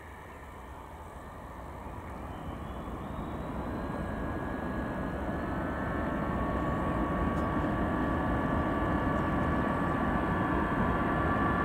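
The four turbofan engines of a BAe 146-100 jet airliner spooling up to takeoff power: a rumble that grows steadily louder, with a whine coming in after a few seconds.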